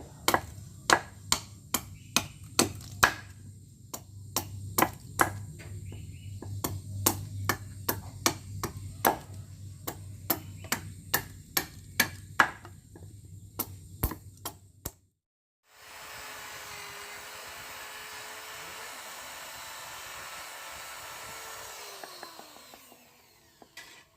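Hand hammer forging steel from a tractor tiller blade on an anvil, ringing strikes about two to three a second over a low hum. After a break, a steady machine noise runs and winds down near the end.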